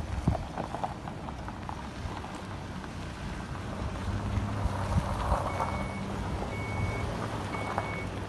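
Pickup truck engine running low as the truck moves slowly. About five seconds in, a high electronic beep starts repeating about once a second.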